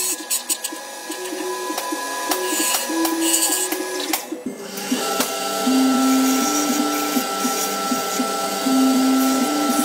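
Wood lathe motor running with a steady whine as the wooden workpiece spins; there is a brief dip about four and a half seconds in, after which a slightly higher whine carries on.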